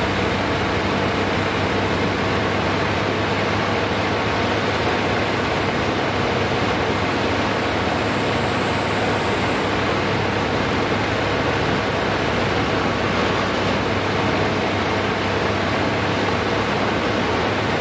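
Bandit Beast horizontal grinder running steadily under load, its diesel engine and cutting rotor grinding pine trees, with an excavator working alongside. The noise is loud and even throughout, without separate impacts.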